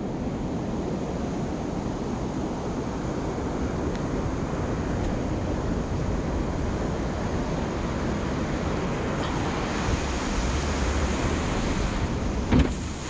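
Steady rush of surf and foaming water around a small fishing boat heading out through the breakers, with wind on the microphone. A single thump near the end.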